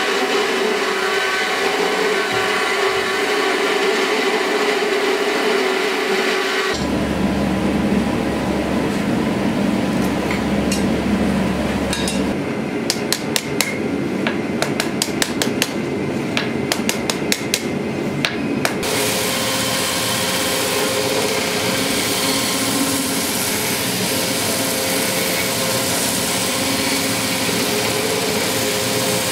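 Belt grinder running with a steel knife blade ground against the belt, a steady grinding noise. It cuts to a low hum, then a run of hand-hammer blows on hot steel on an anvil, about three a second for some six seconds, and then belt grinding again.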